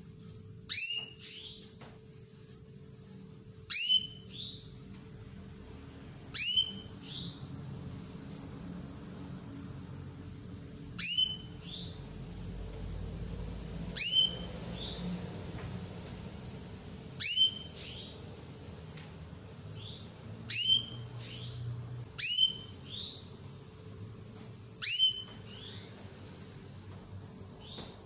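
Female canary calling: a loud, sharp, downward-sliding chirp repeated about ten times, roughly every two and a half to three seconds. These are the hen's calls that breeders play to draw a male canary into song. A fast, steady, high pulsing runs faintly beneath them.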